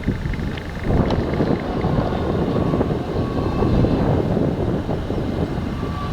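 Potato harvesting machinery running steadily in the field: a loud, continuous, rough engine and machine drone.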